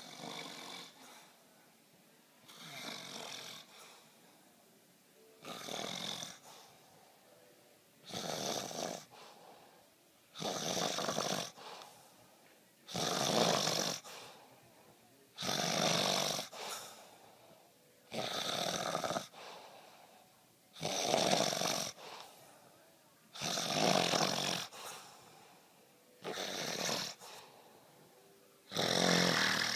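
A man snoring while he naps, with a snore about every two and a half seconds, each lasting about a second.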